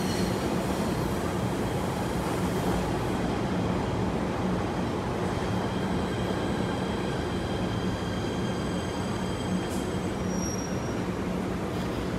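PATH PA-5 subway train running along the station platform: a steady rumble of wheels and running gear with a constant low hum and faint high squealing tones from the wheels.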